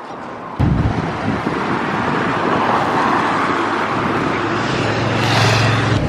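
Inside a moving London double-decker bus: steady engine rumble and road noise, starting abruptly about half a second in, with the engine note strongest near the end.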